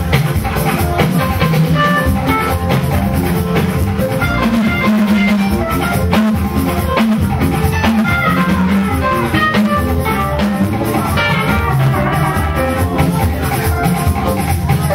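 Live band music with drum kit, percussion and guitar playing a steady beat.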